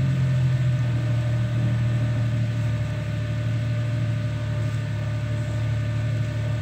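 Tube buggy's engine idling steadily with no revving, a low even hum.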